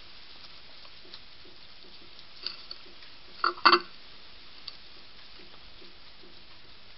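A hedgehog at a ceramic plate of dry food pellets: a few light clicks about two and a half seconds in, then about a second later a short, loud clatter of pellets against the plate as it steps off the dish. A faint steady hiss lies underneath.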